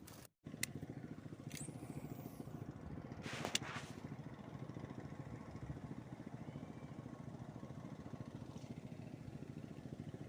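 A small engine running steadily in the background, a faint low hum with a rapid even pulse. A brief sharp noise comes about three and a half seconds in.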